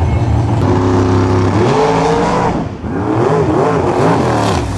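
Top Sportsman drag car's engine running steady and low, then revved: the pitch climbs, drops near the middle and climbs again, wavering, as the car rolls forward on the strip.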